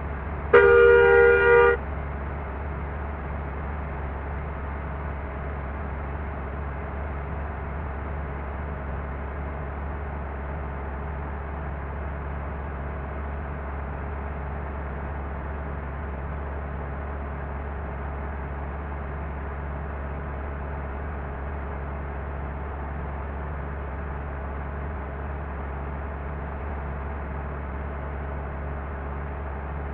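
Bus telolet (Basuri-type) horn sounds one loud blast of about a second, shortly after the start, then gives way to a steady low rumble of the bus running.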